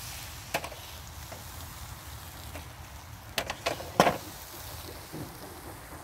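A few sharp knocks and clinks of handled objects: one about half a second in, a quick cluster of three or four between three and four seconds in, the last of them the loudest, and a softer one near the end, over a low steady rumble.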